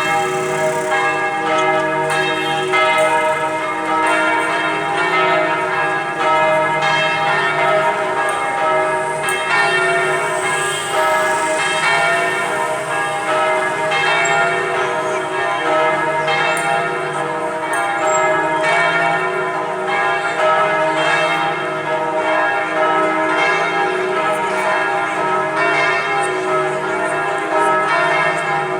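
Church bells of Hanoi Cathedral pealing, several bells struck in quick succession every second or two so their ringing tones overlap and blend.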